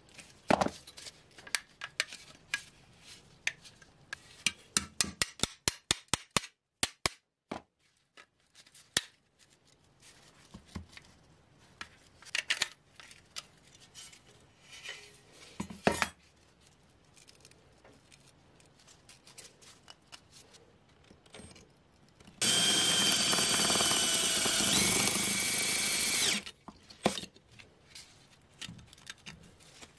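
Sharp clicks and clinks of pressed-steel toy parts being worked with pliers and handled, many in quick succession in the first third. About three quarters of the way through, an electric drill runs steadily for about four seconds, the loudest sound, then stops.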